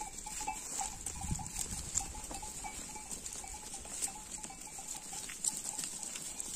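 A flock of sheep grazing, with the bells on the flock clinking faintly now and then among soft rustling.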